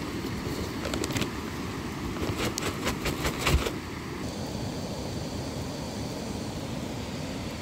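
Steady low rush of a river or cascade, with a run of sharp clicks and knocks over it that stop about four seconds in.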